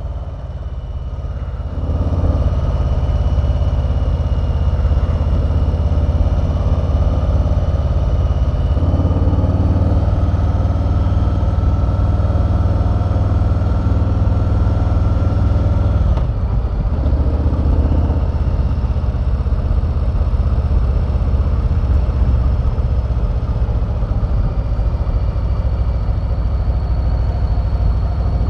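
2020 Harley-Davidson Street Bob's Milwaukee-Eight V-twin running steadily while the bike is ridden. About sixteen seconds in, the engine note drops suddenly, then runs steady again.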